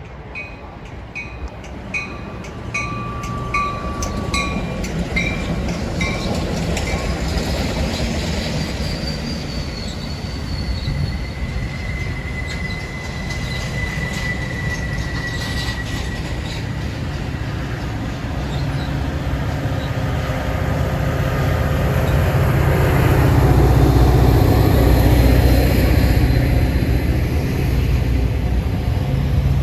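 A train running past on the rails, with thin high wheel squeal from about eight to sixteen seconds in, and a low rumble that grows loudest as it comes closest near the end. During the first several seconds a bell dings about twice a second, then stops.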